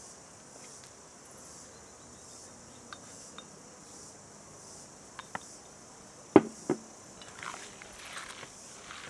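Steady high buzz of insects throughout. A little after six seconds come two sharp knocks, then the soft, wet squishing of hands starting to knead minced lamb and grated onion in a steel bowl.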